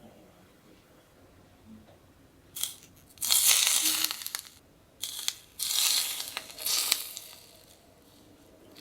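Two bursts of rustling, crinkling noise about two seconds each, with a short gap between them.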